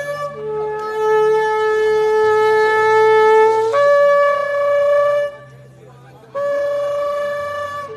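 Shofar blown in long blasts. A brief note opens, then a long held lower note steps up in pitch about four seconds in. After a short break another steady blast begins near the end.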